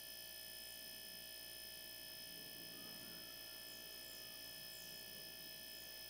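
Faint, steady hum of a refrigerator's hermetic compressor running while it is used to push air through the sealed system to flush it, with thin high steady tones over it.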